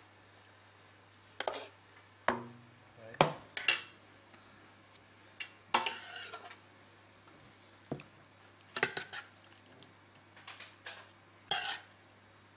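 Metal serving spoon scraping and clinking against a stainless steel stockpot as cooked vegetable stew is spooned out, in separate scrapes and knocks a second or two apart.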